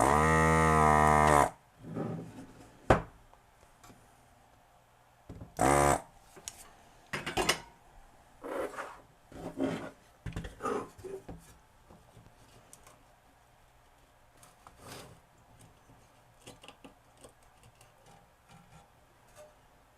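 Electric desoldering gun's vacuum pump buzzing in two bursts, a long one at the start and a short one about six seconds in, sucking molten solder off an inductor's pins on a circuit board; between and after them, sharp clicks and light rubbing of the tool on the board.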